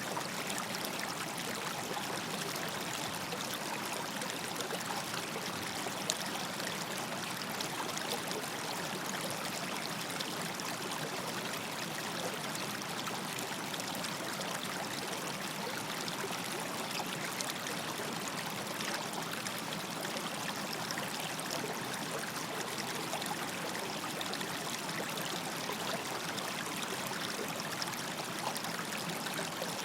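River water flowing steadily, a continuous rushing wash with small splashes and trickles.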